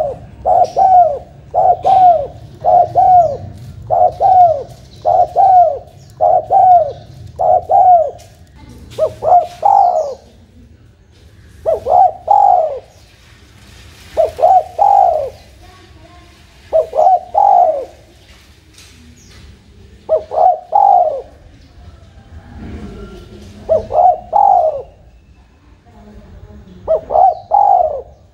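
Spotted dove (terkukur) cooing: a fast, even run of single coo notes, a little over one a second, for about the first eight seconds. After that come phrases of two or three coos every two to three seconds.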